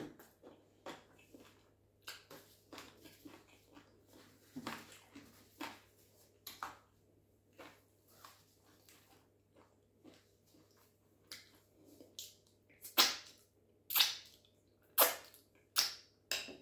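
Close-miked eating with the hands: chewing and wet mouth clicks, then a run of five sharp, loud lip smacks about once a second near the end.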